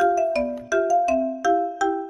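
Background music: a bright, plinking mallet-percussion melody, like a marimba or glockenspiel, with notes struck about three times a second.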